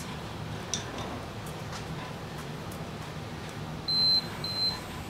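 Gymboss interval timer giving two short, high beeps, one right after the other, marking the end of the 10-second rest and the start of the next 30-second work interval.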